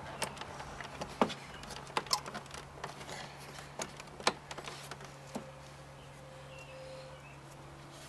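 A series of light, irregular clicks and knocks from hands fitting release cables and plastic parts on a car door panel, over a steady low hum.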